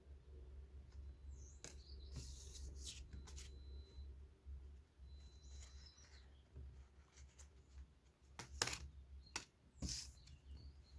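Pokémon trading cards and their packs being handled and opened: soft rustling with several sharp flicks and taps, a cluster about two seconds in and another near the end.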